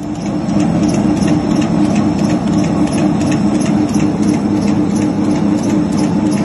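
Keropok lekor machine running: a steady motor hum with sharp regular ticks about four times a second. The noise comes in abruptly at the start.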